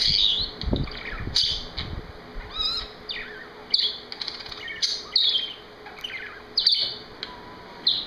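A yellow budgerigar singing: a string of short chirps and warbled whistles, about one a second, over the steady hiss of a room fan blowing on the microphone.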